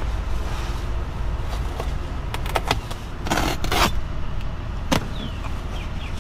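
Utility knife cutting and pulling at a truck seat cover: scrapes, a few sharp clicks and a brief rasping rip about three and a half seconds in, over a steady low rumble.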